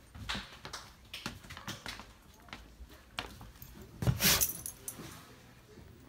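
A puppy moving about on a tile floor beside wire dog crates: scattered light clicks and knocks, with a louder rattle about four seconds in.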